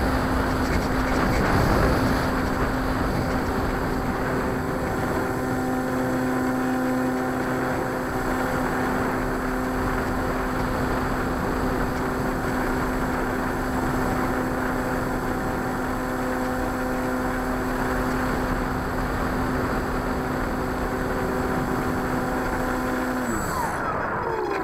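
RC airplane's motor and propeller running at a steady high throttle, heard from on board with wind rushing past. Near the end the throttle is cut and the pitch falls away as the propeller slows.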